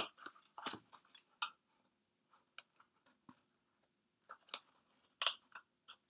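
A paper piercer poking holes through a cardstock box, with hands handling the card: a sharp click right at the start, then a scattered run of short paper crunches and clicks.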